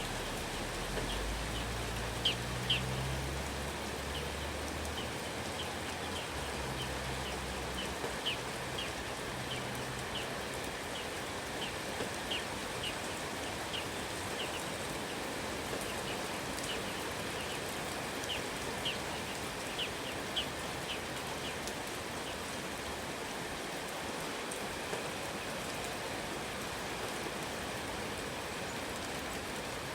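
Steady rain falling, with a bird repeating short sharp call notes about twice a second that stop about two-thirds of the way through.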